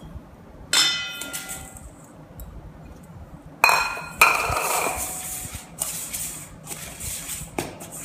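Stainless steel mixing bowl knocked by a wire balloon whisk and left ringing, once about a second in and again around the middle; the whisk then scrapes steadily round the bowl, beating butter and brown sugar together.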